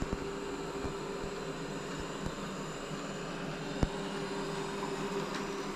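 Robot vacuum running: a steady whirring hum from its motor and brushes. A single sharp knock sounds about four seconds in.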